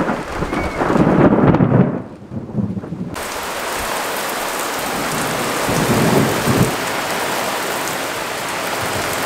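Heavy thunderstorm: a downpour gives a steady, even hiss. Thunder rumbles loudly in the first two seconds and again about six seconds in.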